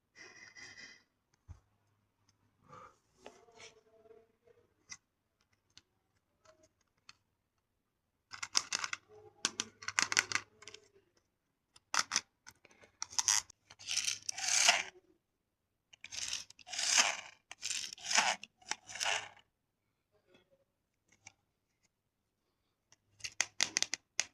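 Toy remote-control cars' small geared motors and plastic bodies making several bursts of rasping, scraping noise, each a few seconds long, with a faint low hum during the bursts.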